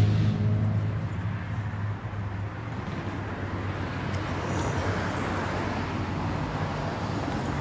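Steady low engine hum over a rushing background noise, like a vehicle running nearby.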